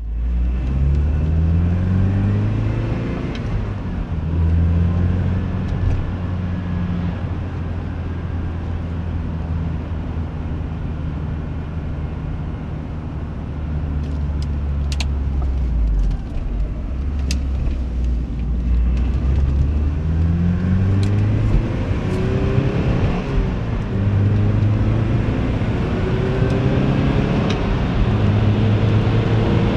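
Porsche 944's inline-four engine driving the car, heard from inside: the engine note rises through the gears at the start, holds fairly steady for a stretch, then climbs again with gear changes in the second half. A few short sharp clicks come through in the middle.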